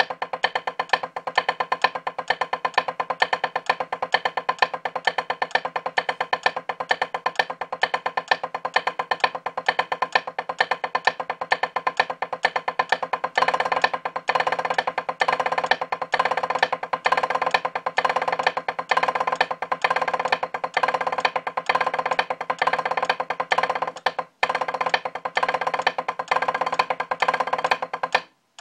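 Drumsticks playing a fast, continuous stream of rudiment strokes on a rubber drum practice pad, sharp dense taps with a hard, wood-block-like ring. It gets louder about halfway through, breaks off for a moment near the end, then stops.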